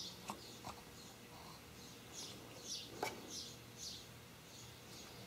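Faint bird chirps: a series of short, high chirps, each falling in pitch, repeating about every half second through the second half, with a soft click about three seconds in.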